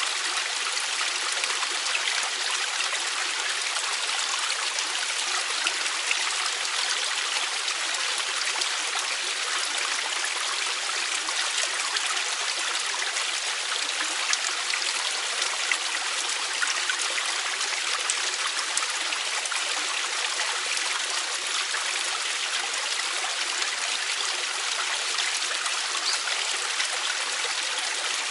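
Mountain valley stream flowing over rocks: a steady, even rush of running water with small splashes and trickles.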